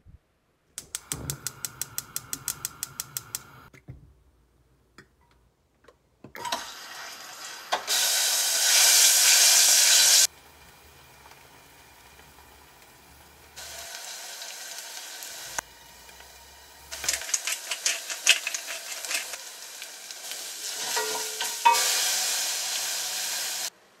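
Cooking in a stainless-steel saucepan on the stove: olive oil and garlic sizzling, with a loud hiss a few seconds in, and a wooden spoon stirring and knocking in the pot. Near the start there is a quick run of even clicks, about six a second.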